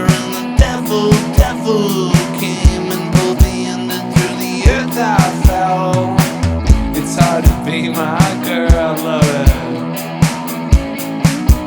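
Rock band playing an instrumental passage between vocal lines: a Roland V-Drums electronic kit keeps a steady beat under electric guitars with bending lead notes, and there is no bass guitar in the mix.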